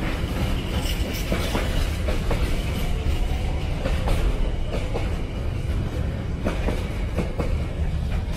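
Heavily loaded container freight train rolling past, its wagon wheels clacking over the rail joints over a steady low rumble.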